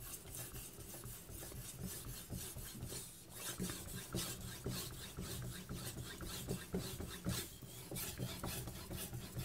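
A carbon-steel knife blade being stroked back and forth on a soaked Kitayama 8000-grit whetstone: repeated short scraping strokes.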